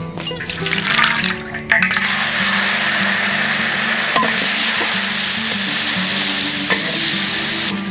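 Food sizzling in hot oil in a pan, starting suddenly about two seconds in with a loud, steady hiss that cuts off just before the end. A few clicks and clatter come before it.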